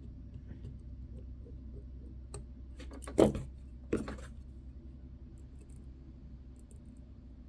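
Small metal watch tools and parts handled on a workbench, with faint ticks and then two sharp clicks, the first and louder about three seconds in and the second a moment later. A low steady hum runs underneath.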